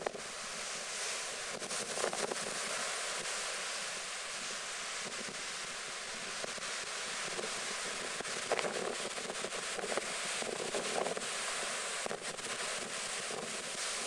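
Storm waves breaking and washing over a slipway and sea wall: a steady rush of heavy surf. Gusts of wind buffet the microphone now and then.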